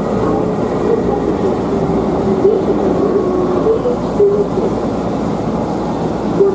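Running sound of a Keihan electric train, set 1002F, heard from inside the passenger car: a steady rumble of wheels on rail, with short whining tones that waver up and down.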